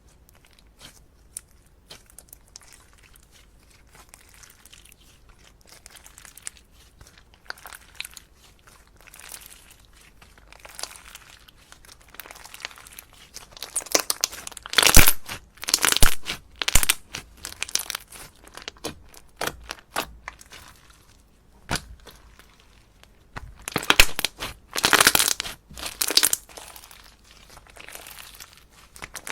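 Slime being pressed, stretched and squeezed by hand, making many small clicks and pops; soft at first, with louder runs of popping about halfway through and again near the end.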